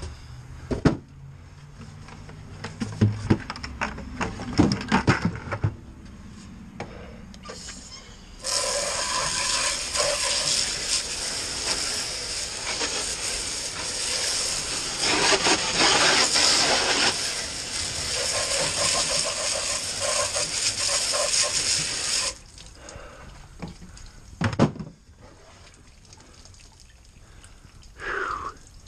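Garden hose spray nozzle hissing as it jets water into a black rubber feed pan, a loud steady spray starting about 8 seconds in and lasting some 14 seconds before cutting off sharply. Knocks and clatter from handling the pan and buckets come before it, with one sharper knock a couple of seconds after the spray stops.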